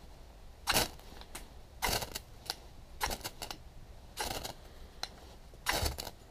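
Five quick scrapes of a knife down a ferrocerium rod, about a second apart, each a short rasp that throws sparks onto a bundle of damp poplar bark tinder.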